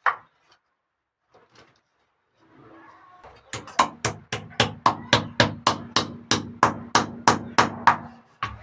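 A hammer striking in a rapid, even rhythm, about three to four blows a second, starting about three seconds in and stopping shortly before the end.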